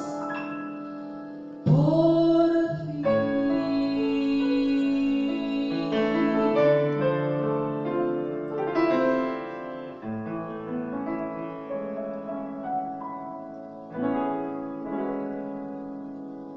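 Piano closing passage of a song: slow chords under a melody, the notes ringing on and dying away near the end.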